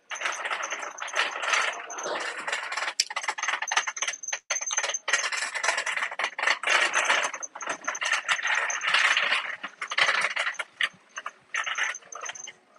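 Shopping cart rattling as it is pushed across a hard store floor: a continuous clatter of many small knocks from its wheels and basket.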